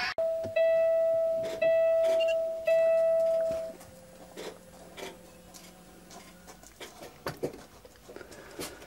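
Kenworth T660 dashboard warning chime sounding three times, evenly spaced, at ignition key-on before the engine is cranked, followed by a few faint clicks in the cab.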